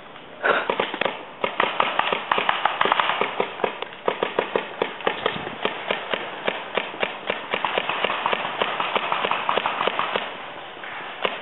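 Paintball markers firing rapid, irregular volleys of sharp pops, several a second, easing off about ten seconds in.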